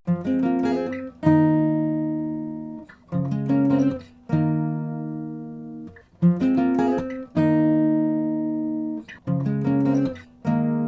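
Background music on acoustic guitar: plucked notes and chords, several of them left to ring and fade out.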